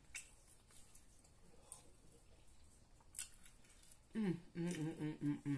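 A person eating: quiet chewing with a few sharp mouth clicks, then about four seconds in a short run of wordless 'mm-mm' humming in appreciation of the food.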